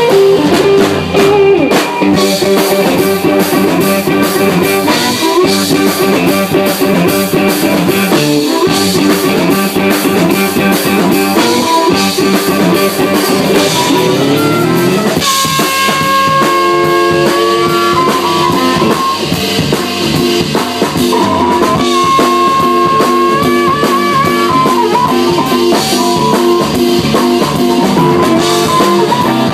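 Live band playing: a drum kit keeps a steady beat under electric guitar.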